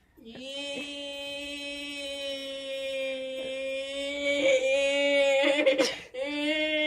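A voice holding one long, steady sung note, with a short break near the end before a second note starts.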